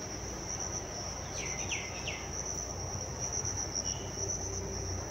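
A cricket trilling steadily at a high pitch, with a few short scrapes from a spatula stirring sliced mango in a metal cooking pot about one and a half to two seconds in.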